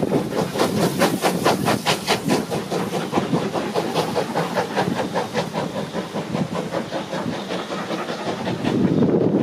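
Departing steam locomotives, a BR Standard Class 4 4-6-0 and an Ivatt Class 2MT tank engine, chuffing rapidly at about five exhaust beats a second over hissing steam. The beats fade over the first several seconds as the train pulls away. Wind rumbles on the microphone near the end.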